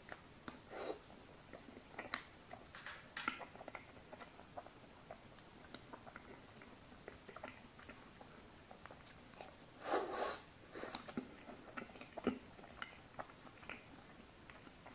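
Close-miked mouth sounds of eating a pink chocolate-coated ice cream bar: bites cracking the thin shell, wet chewing and lip smacks, scattered and soft, with the loudest bite about ten seconds in.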